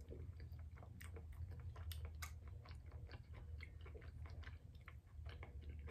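A person chewing a bite of bread with the mouth close to the microphone: many small, soft wet clicks and crunches at an uneven pace, over a faint steady low hum.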